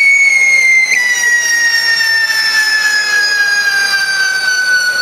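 Whistling firework wheel spinning and throwing sparks: one continuous shrill whistle that slowly falls in pitch as the whistle composition burns down.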